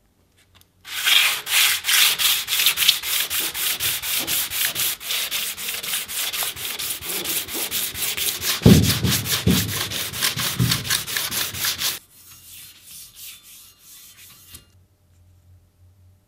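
Hand sanding a metal shear's frame plate with 600-grit sandpaper on a hard cork block: quick back-and-forth scraping strokes, about four or five a second, with a few heavier thuds of the block around nine to eleven seconds in. The sanding stops abruptly about twelve seconds in, followed by a much fainter rubbing for a couple of seconds.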